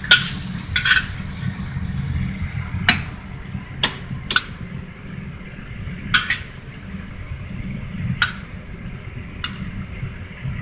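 Metal spatula scraping and clanking in a wok and against a metal plate as stir-fried chicken wings are scooped out, about eight separate strokes, over a faint sizzle that thins after the first few seconds and a steady low rumble.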